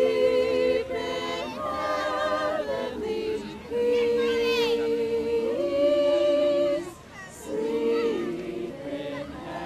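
Crowd singing a Christmas carol together in long held notes, with a short break between phrases about seven seconds in.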